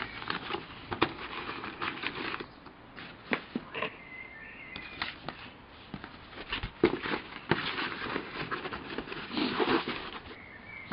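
Paper instruction sheet and cardboard model-kit box being handled: rustling and crinkling with scattered light taps and knocks as the box is closed.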